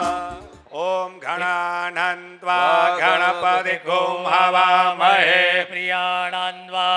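Male voice chanting Sanskrit mantras in a melodic, sung recitation over a steady low drone. It starts about a second in, just after music fades out.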